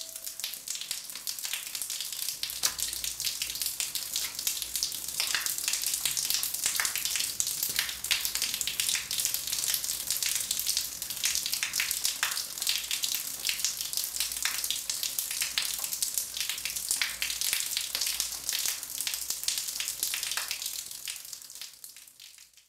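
Shower water spraying and splattering in a tiled shower: a steady hiss full of crackling droplets that fades away near the end.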